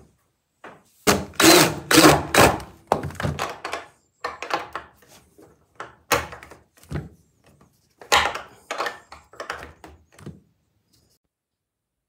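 A string of wooden thunks and knocks as the heavy wooden loft ladder and its metal hardware are handled. There is a loud cluster about a second in and another about eight seconds in, then the knocks stop.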